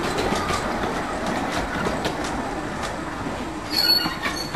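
Narrow-gauge passenger carriages rolling past on the track, their wheels clicking over the rail joints, with a brief high-pitched wheel squeal about four seconds in.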